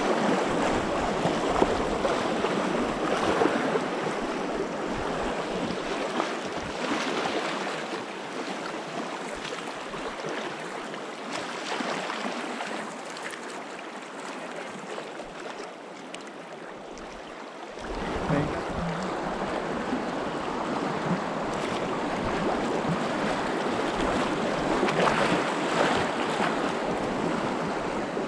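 Rushing river water, a steady wash of whitewater. About two-thirds through it gets louder, with a low rumble added underneath.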